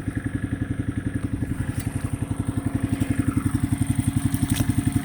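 Small go-kart-type engine of a budget side-by-side running at a steady idle with a fast, even pulse, getting a little louder after the middle.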